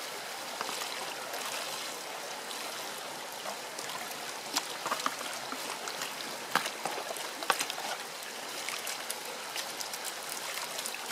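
A shallow stream running steadily, with water sloshing and splashing as a ridged plastic gold pan is swirled and dipped in a larger water-filled pan during gold panning. A handful of short, sharp splashes come around the middle.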